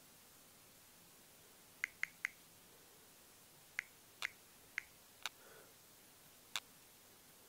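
Short, sharp clicks from fingertip taps on the LG L40 D170 smartphone's touchscreen: three in quick succession about two seconds in, then single taps every half second or so, and a last one near the end.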